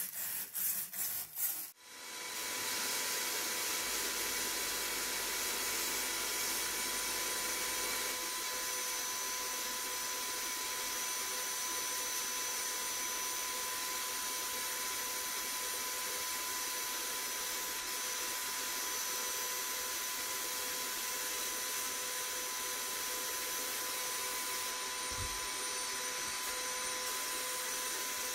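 A hand wire brush scrubs the rusty steel blade of a trowel in a few quick strokes. About two seconds in, a sandblasting gun in a blast cabinet starts a steady hiss of air and abrasive against the blade, with a faint steady whistle over it.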